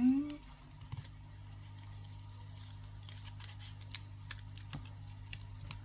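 Light clicks, taps and rustling as tiny miniature-kit pieces are handled and pressed into place, over a faint steady hum.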